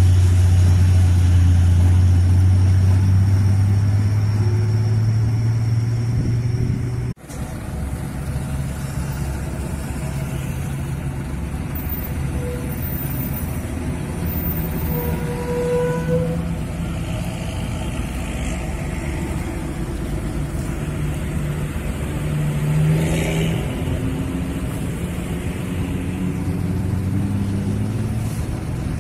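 Heavy diesel engine of a Mitsubishi Fuso trailer truck running under load as it pulls up a bend, its pitch slowly rising, cut off suddenly about seven seconds in. After that, mixed road traffic: truck, bus and motorbike engines passing.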